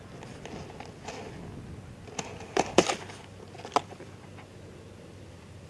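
Cardboard carton crackling and scraping as a cat climbs and paws at it: a few sharp crackles, the loudest a little under three seconds in, with one more near the four-second mark.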